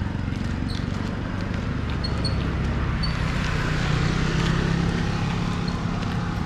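Street traffic noise with a small motorcycle engine running on the road, its hum growing louder about halfway through. Faint short high chirps sound now and then.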